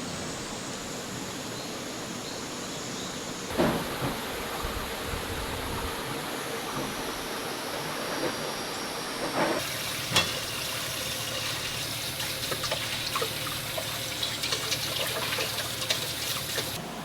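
Running water, a steady rushing that changes abruptly a few times, with a couple of short knocks.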